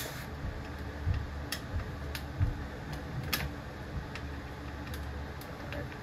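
Scattered light clicks and taps of a screwdriver working at the motor of a 2003–04 Lasko 3725 box fan, several at uneven spacing, over a low steady hum.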